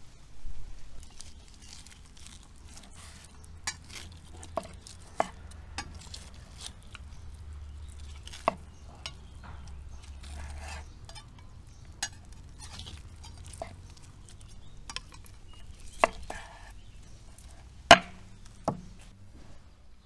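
Chef's knife cutting cooked meat off the bone on a wooden cutting board: soft slicing with scattered sharp knocks and clicks of the blade against the board, the loudest near the end.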